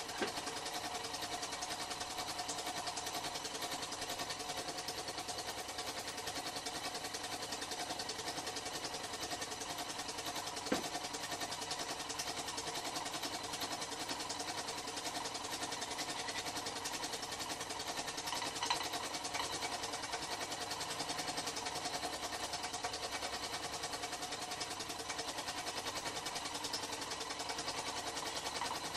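Small T. E. Haynes-design model steam engine running steadily with a fast, even beat, its piston letting steam blow by. Two light clicks come near the middle.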